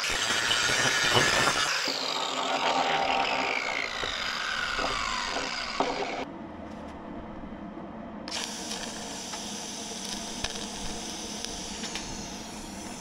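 Angle grinder with a flap disc grinding steel around a welded hole, then lifted off and spinning down with a whine that falls in pitch over a few seconds. A quieter steady hum follows after an abrupt drop in level.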